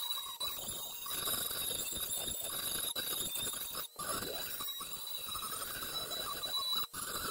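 Dremel rotary tool with a grinding tip running at a high-pitched whine and grinding against the edge of a rusty steel Toro Recycler mower blade, sharpening it. It cuts out briefly twice, just before halfway and near the end.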